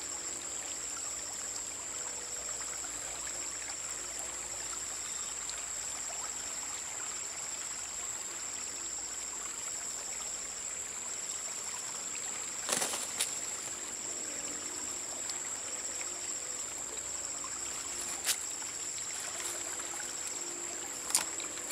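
Shallow river flowing and trickling past debris, with a steady high insect drone and a pulsing chirp over it. A few brief knocks break in around the middle and near the end.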